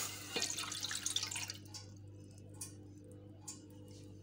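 Cornflour slurry poured from a bowl into a steel pan, splashing for about a second and a half, then a few faint drips.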